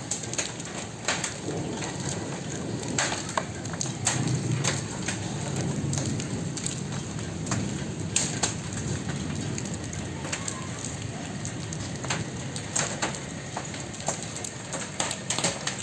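Rain pelting a flooded concrete surface, with hailstones striking in scattered sharp clicks and knocks throughout.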